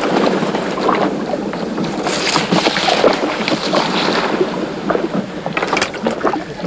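Water splashing and rushing along the wooden hull of an oared rowboat as it pushes through reeds, with reeds brushing against the bow. The rush swells for a stretch in the middle, and there are a few sharp clicks near the end.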